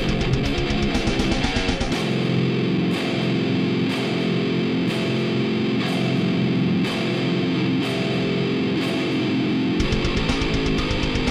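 Heavy metal instrumental: high-gain distorted electric guitar through a Digitech RP500's Randall amp model, over sampled drums. A rapid drum beat drops out about two seconds in to a slower section with a hit about once a second under held guitar chords, and the rapid beat returns near the end.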